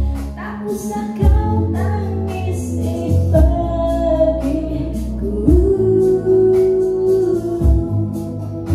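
A song: a woman singing over instrumental backing with a slow low beat, with one long held note in the second half.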